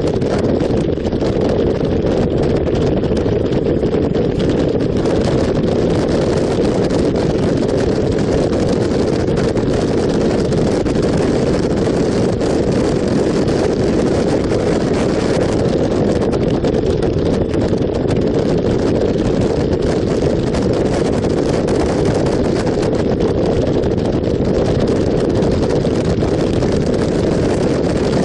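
Motorcycle running at a steady cruising speed of about 80 km/h, its engine sound mixed with a steady rush of wind on the microphone.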